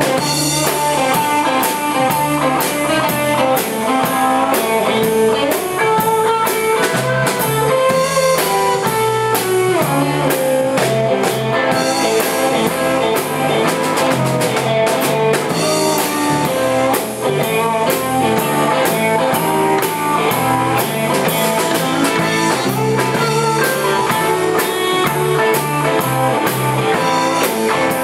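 Live blues-rock band playing an instrumental passage: a Fender Stratocaster electric guitar through an amplifier over a steady drum-kit beat, with no singing.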